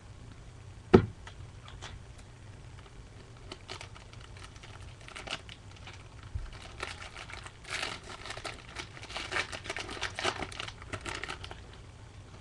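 A sharp knock about a second in, then a wrapper on a pack of football trading cards being torn and crinkled in bursts of crackling for several seconds.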